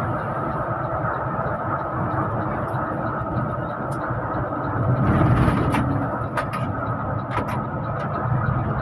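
Steady engine and road noise of a Budiman intercity bus on the move, heard from inside the cabin. The noise swells briefly about five seconds in, and there are several sharp rattles or clicks in the second half.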